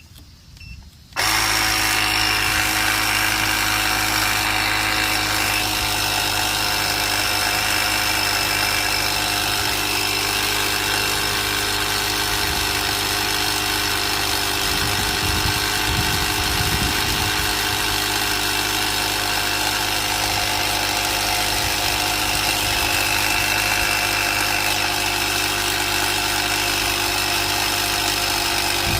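Portable tire inflator (small electric air compressor) switching on about a second in and running steadily, pumping air into a car tire.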